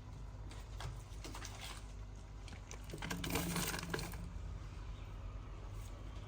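Frozen food packets being handled and put into a freezer: scattered light plastic rustles and small knocks, busiest about three seconds in, over a low steady hum.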